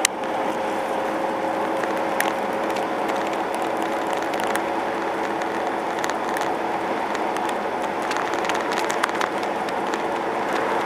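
Steady road and engine noise inside a car cruising on a highway, with a few scattered faint clicks.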